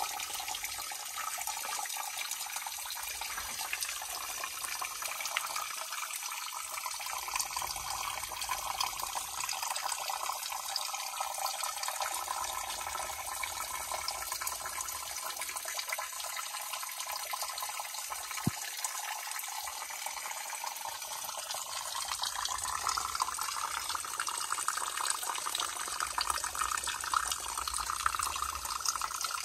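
Steady trickle of a small creek's water running over limestone rocks, a little louder in the last third.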